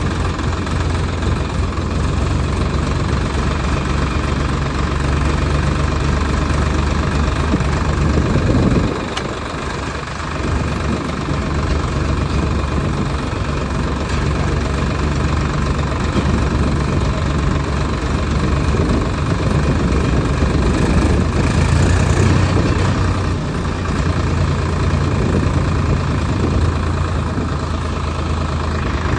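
Diesel tractor engine running steadily, its note dipping briefly about nine seconds in before settling back.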